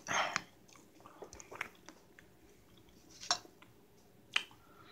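A person chewing food close to the microphone, with a few scattered wet mouth clicks and smacks.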